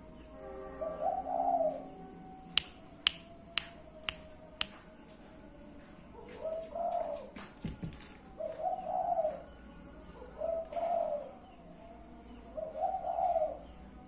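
Caged spotted doves cooing: five coo phrases, about two seconds apart. Between the first two phrases come five sharp clicks, about two a second.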